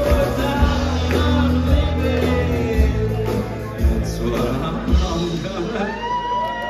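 Live band music: acoustic guitar and drums with singing, the kick drum beating steadily, and a long held note near the end.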